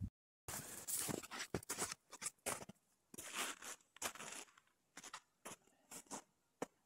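Faint, short, irregular crunches and rustles of a person moving about on packed snow and handling gear at a camp chair.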